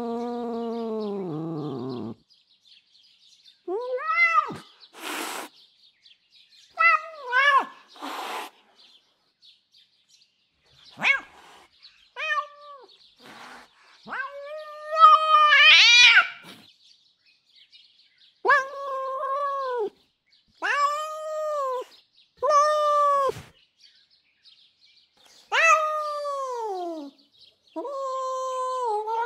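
Domestic cat's agitated vocalisations: a long annoyed meow falling away, then short angry calls with hisses, a rising screech about sixteen seconds in that is the loudest sound, and a run of drawn-out annoyed meows with short silences between them.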